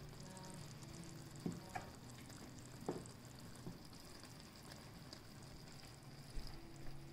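A thick tomato-and-vegetable ragout simmering in a steel pot, with a few sharp pops from bubbles bursting, mostly in the first half.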